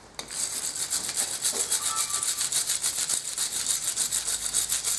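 Steel wire brush scrubbing rust and dirt off the pad seats of a rear brake caliper carrier, in quick, even back-and-forth strokes, several a second. It cleans the abutments so the new pads can slide freely.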